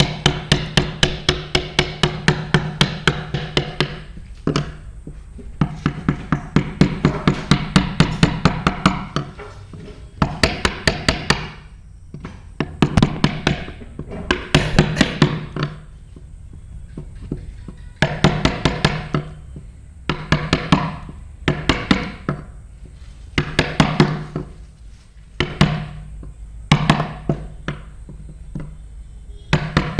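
Mallet tapping a carving chisel into wood in quick runs of about five strikes a second, each run lasting a few seconds with short pauses between. The struck steel gives a ringing tone: hand finishing of a CNC-carved wood panel.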